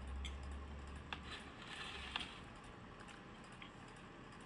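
Quiet eating and food-handling sounds: a low rumble at the start, then two sharp clicks with a brief crunchy rustle between them.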